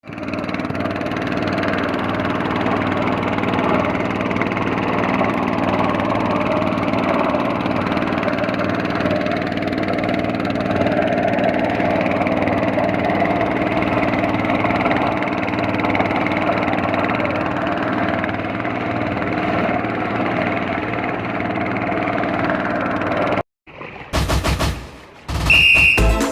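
Boat engine running steadily, a loud, even drone. It cuts off suddenly near the end, and music starts.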